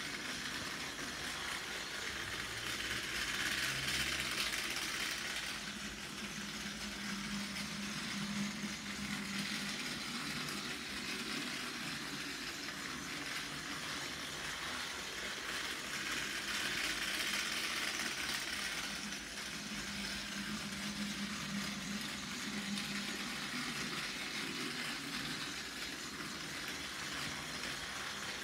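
Plarail C61 20 toy steam locomotive's small battery-powered motor whirring as the train runs around plastic track, growing louder twice about thirteen seconds apart.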